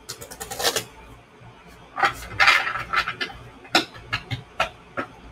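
Tarot cards being shuffled by hand: a quick run of flicking card edges in the first second, a longer rustle of cards sliding together around two seconds in, then a few separate sharp card snaps.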